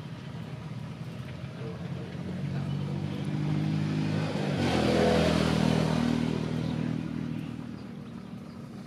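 A motor vehicle's engine passing by: it grows louder, is loudest about halfway through, then fades away.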